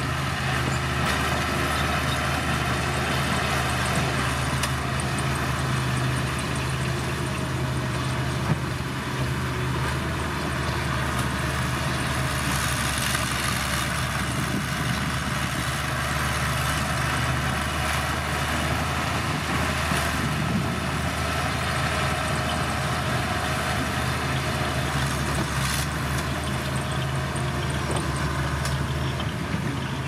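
Komatsu D31P crawler bulldozer's diesel engine running steadily as the dozer pushes a load of soil with its blade, a constant low engine note with no changes in speed.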